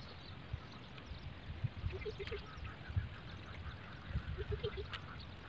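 Animal calls from the marsh in short runs of three or four quick notes, twice, about two seconds in and again about four and a half seconds in, over a low rumble.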